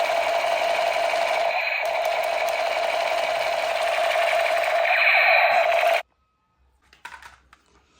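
Battery-powered Spider-Man toy gun firing: a steady, rapid electronic buzz-rattle that holds for about six seconds, then cuts off suddenly.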